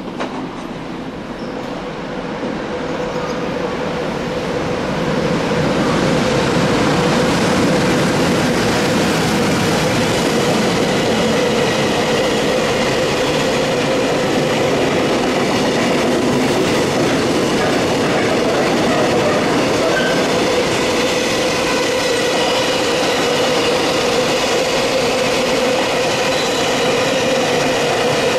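An EH500 electric locomotive hauling a long container freight train approaches and then passes close by. The rumble of wheels on rails grows louder over the first five or so seconds, then runs on steadily, with a steady whine over it.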